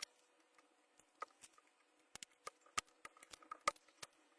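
A string of sharp, irregular clicks and ticks, busier in the second half, from tools and hands working a faulty lithium cell out of an electric-scooter battery pack.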